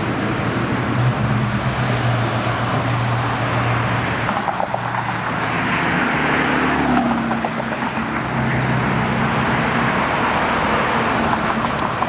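Road traffic: vehicles passing with tyre noise and a steady low engine hum, swelling as a vehicle goes by about halfway through.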